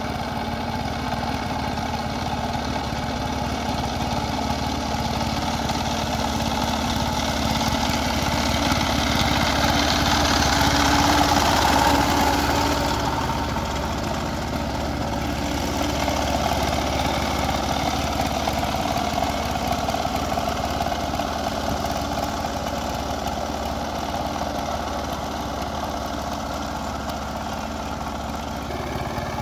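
Two-wheel power tiller's engine running steadily under load as it churns through a flooded, muddy paddy field, growing louder as it comes close about ten to twelve seconds in, then easing off.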